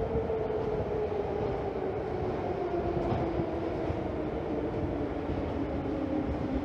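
Metro train slowing down, its motor whine falling steadily in pitch over a low rumble.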